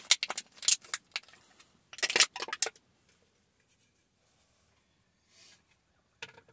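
Two quick runs of sharp clicks and rattles in the first three seconds, then a single click near the end: small hard objects being handled.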